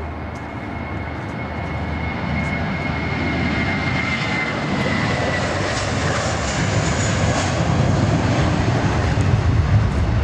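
Airbus A321 jet engines at takeoff thrust during the takeoff roll: a steady rushing roar that grows louder, with a high whine that slides down in pitch about four to five seconds in.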